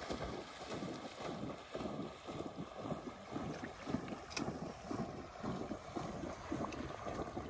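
A dog bounding through shallow water on a retrieve, splashing with each leap in a quick, even rhythm of about three splashes a second.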